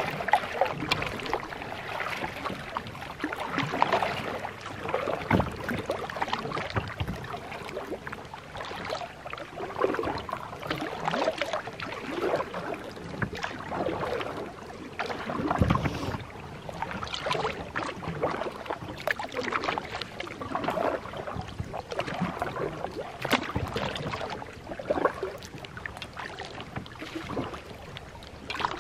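Lake water splashing and gurgling against a plastic kayak hull as it is paddled along, the hull cutting through the water. The splashing comes in uneven surges, with an occasional knock.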